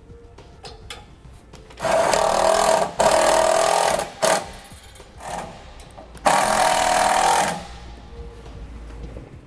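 Cordless power driver driving screws through plastic clips into a trailer frame to hold a brake line: two runs of motor whine and rattle about two seconds in, a short blip, then another run of about a second near the end.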